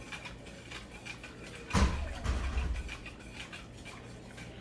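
A wire whisk stirring béchamel sauce in an enameled cast-iron pot, with light clicks and scrapes against the pot, and one louder knock with a dull thud a little under two seconds in.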